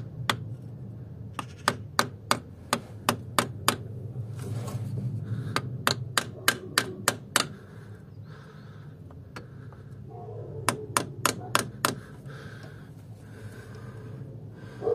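Hammer striking metal at a gearbox's driveshaft seal: quick runs of sharp blows, several to a run, separated by pauses of a few seconds, over a steady low hum.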